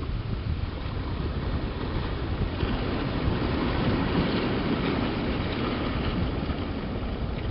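Wind buffeting the microphone, a steady rumbling rush of noise that swells a little in the middle.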